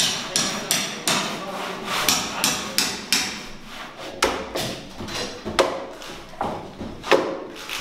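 Repeated blows of hand tools on timber, hammer or mallet strikes and axe cuts into wood, about three a second at first, then slower, with a few sharper, louder knocks in the second half.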